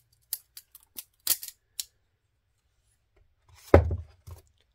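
Benchmade Morpho balisong being handled and closed: a quick run of light metallic clicks and clacks as the handles swing and latch. About three and a half seconds in comes a dull thump, the loudest sound, then a smaller knock as a knife is worked in the foam-lined hard case.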